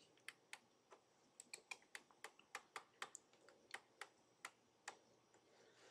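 Faint, irregular clicking of computer keys: about fifteen light taps, a few a second, stopping about a second before the end.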